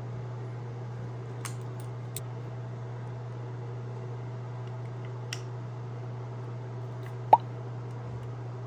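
Small metal clicks of Glock 22 slide parts being handled during a back-plate change, with one sharp click and a brief high ring about seven seconds in, over a steady low hum.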